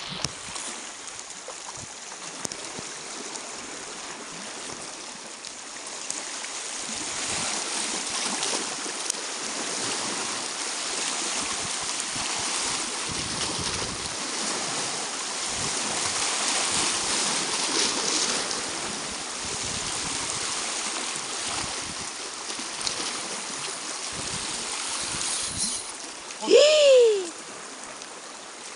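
Sea waves washing and splashing against a rocky shore, a steady noise that grows a little louder after a few seconds. Near the end comes a short, loud cry that rises and then falls in pitch.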